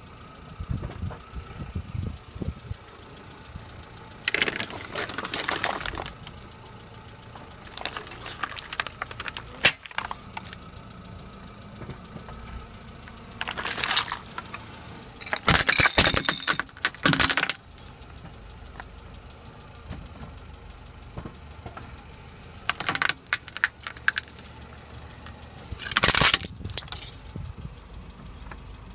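A car tyre rolling over and crushing a series of small objects one after another, giving about six separate bursts of crackling and crunching, among them a plastic water bottle bursting around the middle and a plastic plate cracking near the end. Between the crushes the car's engine runs at a low idle.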